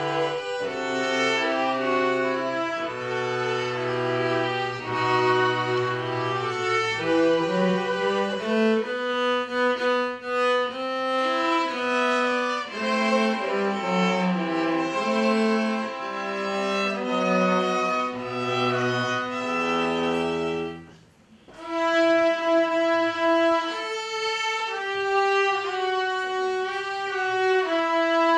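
A string ensemble of violins and a cello, played by children, performing a piece with held, overlapping notes. The music breaks off briefly about three quarters of the way through, then resumes.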